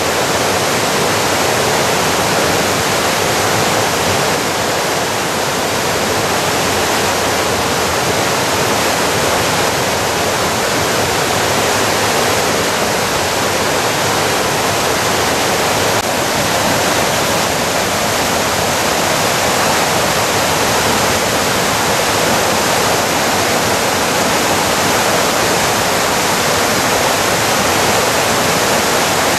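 Waterfall running high in spring flood: a loud, steady rush of water pouring over rock and churning through the rapids below.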